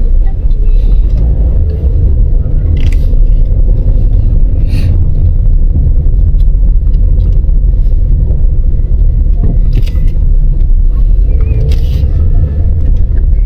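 Steady low road and engine rumble heard from inside a moving car's cabin, with a few brief higher noises over it.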